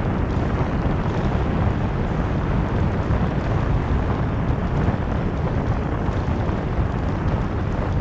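Wind buffeting the microphone of a camera on a moving car: a steady, deep rushing rumble with no let-up.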